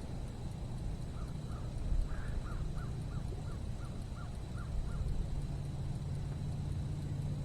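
A bird calling in a quick run of about ten short calls, about three a second, over a steady low rumble.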